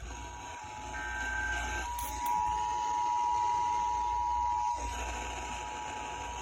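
Emergency Alert System two-tone attention signal, a steady chord of two tones near 853 and 960 Hz, over radio hiss. It grows louder about two seconds in and drops back a little near five seconds. It marks the start of a Required Monthly Test.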